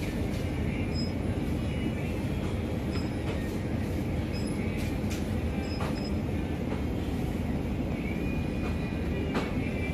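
Steady low rumble of a moving vehicle, with scattered light clicks and a faint high squeal coming in near the end.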